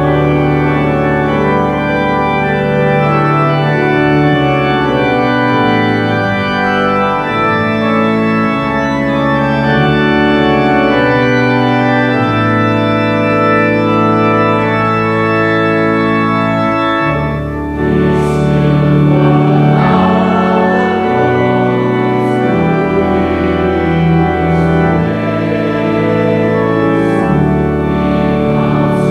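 Organ playing slow, sustained chords. A little past halfway it eases briefly, then carries on fuller, with crisper note attacks.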